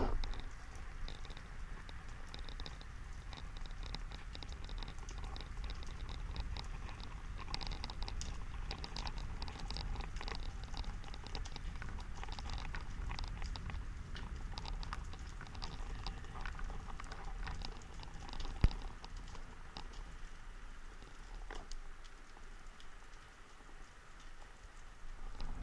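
Underwater ambience heard through a camera housing: a low steady water rumble with a constant fine crackle of tiny clicks, and one sharp click a little past two-thirds of the way through.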